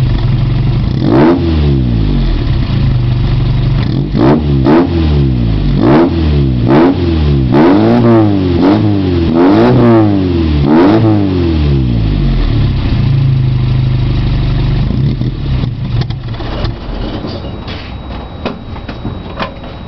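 Chevrolet Chevette 1.6 four-cylinder petrol engine with a dual-outlet exhaust, revved again and again in quick blips, then settling to a steady idle and growing quieter over the last few seconds.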